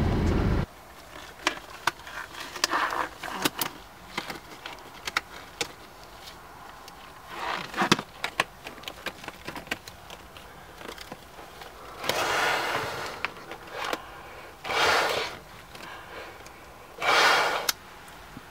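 Latex gloves being pulled on and worked over the hands, with small crinkling clicks and several louder rustles of about a second each. A vehicle's low rumble cuts off just after the start.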